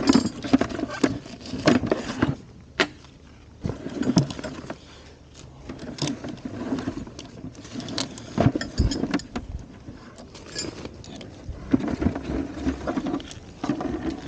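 Handling noise of a magnet-fishing rope pulled out of a plastic bucket with gloved hands: irregular rustling with scattered knocks and clicks.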